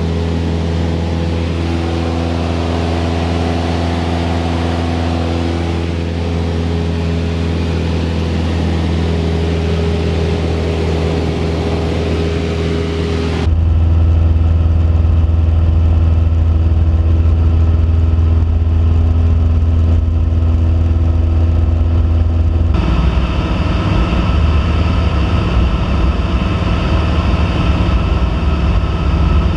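Cessna 172P's four-cylinder Lycoming engine and propeller droning steadily at cruise, heard inside the cabin. The tone changes abruptly twice, about a third of the way in and again later.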